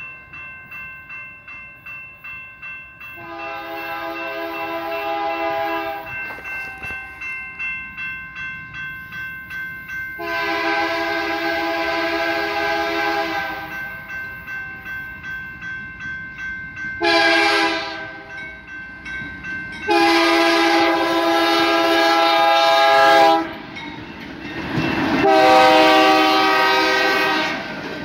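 Railroad crossing bell ringing in a steady rhythm while a BNSF freight's lead locomotive, a GE C44-9W, sounds its multi-chime horn for the crossing: two long blasts, a short one, then long blasts again. Near the end the train reaches the crossing and the engine and wheel noise grow loud.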